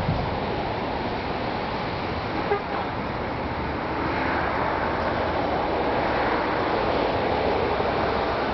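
Steady wash of passing street traffic, with one short, sharp sound about two and a half seconds in.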